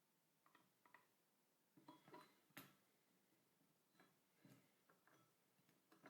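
Faint, scattered clicks and knocks of a screwdriver working the action screws of a Mauser K98k rifle, with the loudest knock about two and a half seconds in.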